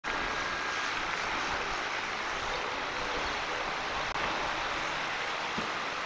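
Steady rushing noise of strong storm wind blowing over the open river and city, heard through an outdoor webcam microphone.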